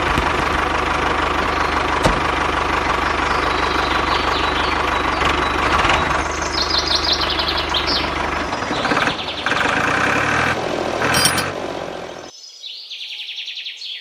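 Mini tractor's small engine running steadily with a fast pulsing beat, cutting off abruptly about twelve seconds in. Birds chirp after it stops.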